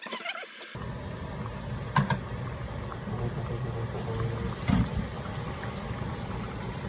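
Steady rushing of water in a kitchen, with light clinks of kitchenware about two seconds and nearly five seconds in.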